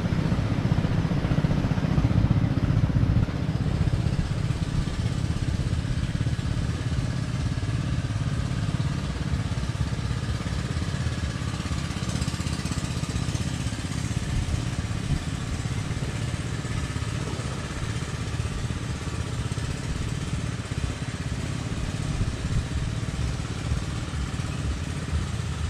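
Wind buffeting the microphone: a steady low rumble with no breaks.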